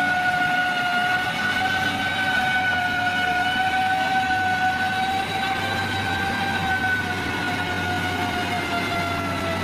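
Heavy construction machinery running with a steady high-pitched whine over a low rumble, its pitch drifting slightly up and then back down.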